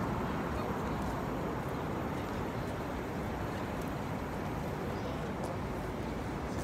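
Busy city street ambience: a steady wash of passing car traffic.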